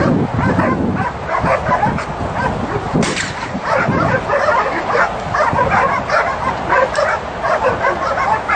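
A dog yipping and whining over and over, several short high cries a second without a break, while heeling close at its handler's side.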